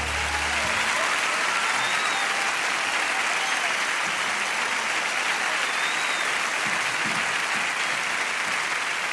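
Live concert audience applauding at the end of a song, with a few whoops and whistles in the crowd; the band's last chord dies away in the first second.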